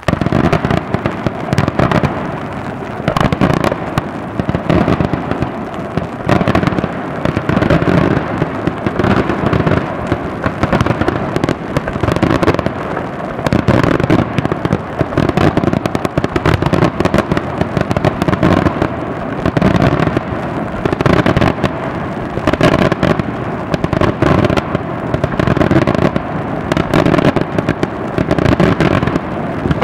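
Daytime aerial fireworks going off in a dense, continuous barrage of bangs and crackles, starting suddenly at the outset with no pause.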